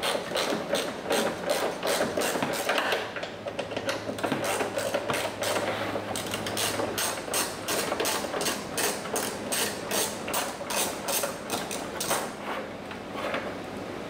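Hand socket ratchet clicking in a steady run as it backs out a 10mm bolt.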